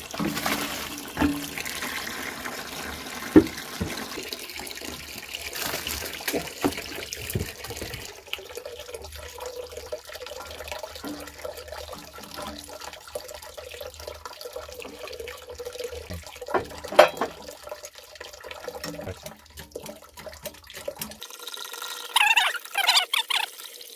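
Liquid poured from a bucket over crushed fruit in a fruit press's perforated drum, with juice trickling out into a tub below. A few sharp knocks come as the press plate, wooden blocks and bottle jack are set on top.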